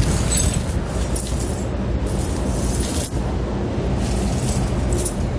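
Steel tire chain links rattling and clinking in short bursts as the chain is fed around behind a car tyre and dragged over concrete, over a steady low hum.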